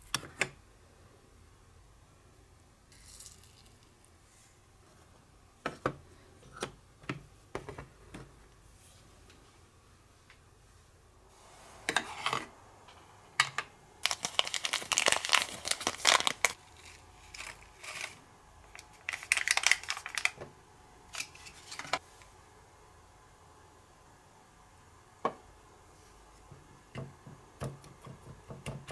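A small paper packet of toy-cooking powder crinkling and being torn open, in a few bursts of rustling through the middle, with scattered light clicks of small plastic toy parts. Near the end, a small plastic spoon scrapes as powder is stirred in a mini mixing bowl.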